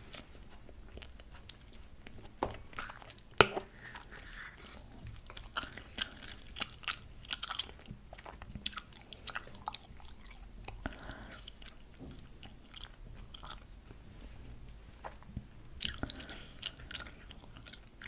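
Close-miked chewing of strawberry bubble gum: irregular clicks and crackles, with one sharp click about three and a half seconds in.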